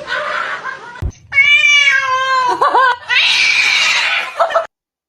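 A cat meowing loudly: one long, drawn-out call beginning about a second in, then short rising-and-falling calls and a harsher, rasping cry that cuts off abruptly near the end. A single knock comes just before the first call.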